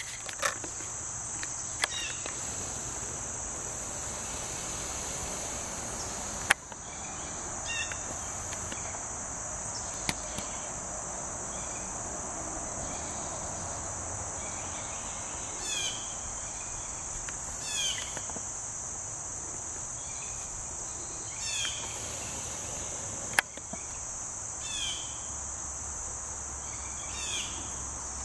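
Steady, high-pitched chorus of crickets. Short falling chirps come every few seconds from about halfway on, and a few sharp clicks break in now and then.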